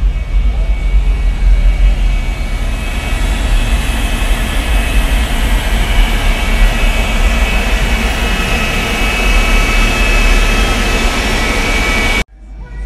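Pickup truck engine running with the hood open: a loud, steady mechanical noise with a deep rumble underneath and a faint high whine. It cuts off suddenly near the end.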